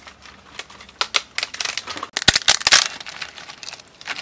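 Brittle dried tofu skin sheets crackling and rustling as they are handled by hand and dropped into a metal tray, with a dense run of crisp clicks about two to three seconds in.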